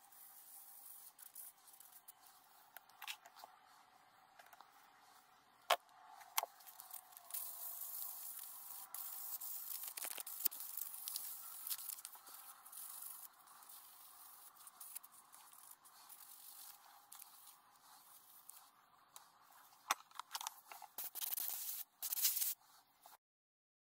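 Hand-sanding a carved poplar lure blank with a sanding sponge: irregular scratchy rubbing with a few sharp clicks, louder for a couple of seconds near the end before it cuts off.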